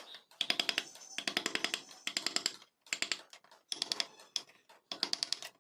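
Background music: phrases of fast, evenly spaced percussive ticks, about ten a second, over sustained pitched notes, broken by short pauses.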